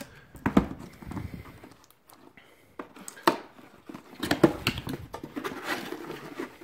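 Cardboard box being opened and handled: irregular knocks, taps and scraping of cardboard. The sharpest knocks come about half a second, three seconds and four and a half seconds in.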